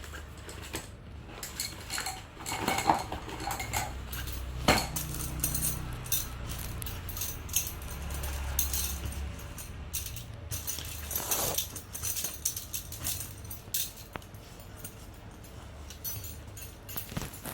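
Irregular clicks, rustles and light clinks of things being handled and unpacked, over a steady low hum.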